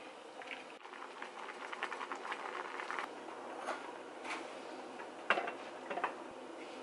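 A pot of water bubbling on the stove, with a dense crackle in the first few seconds. Then come four sharp clinks as wooden chopsticks knock against the pot and a ceramic bowl while lifting food, the loudest about five seconds in.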